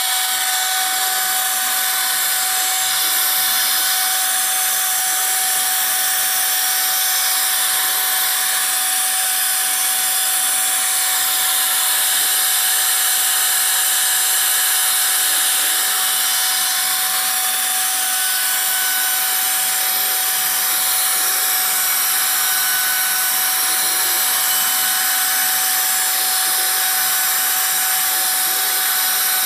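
CNC router spindle running at high speed, its small engraving bit cutting grooves into melamine-faced board: a steady whine with a constant hiss.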